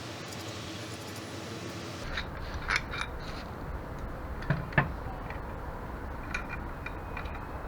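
A steady hiss, then after a cut about two seconds in, a few sharp metallic clinks and knocks from bolts and fittings being handled while mounting a bench vise. The loudest come a little before the middle of the stretch.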